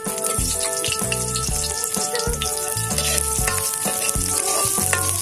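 Chopped garlic sizzling in hot cooking oil in a metal wok over a wood fire, stirred with a metal ladle. Background music plays underneath.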